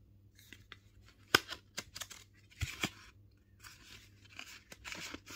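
Handling of the phone's cardboard packaging and paper booklet: a sharp tap a little over a second in, then several short bursts of paper and cardboard rustling with small clicks.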